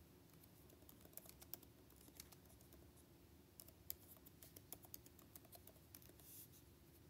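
Faint, irregular light clicks in quick runs, then a brief soft rustle near the end.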